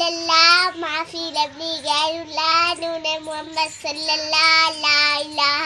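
A young girl singing alone, in long held notes with a slight waver in pitch and short breaths between phrases.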